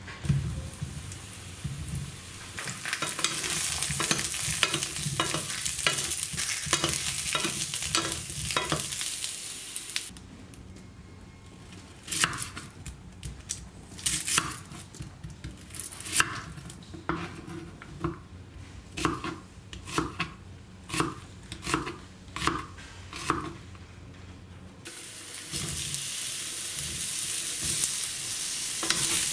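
Hot oil sizzling in a non-stick frying pan while a wooden spatula scrapes and stirs. From about ten seconds in, a kitchen knife cuts an onion on a wooden board: about a dozen separate chops, roughly one a second. Near the end comes sizzling again as sliced onion and mushrooms fry in the pan.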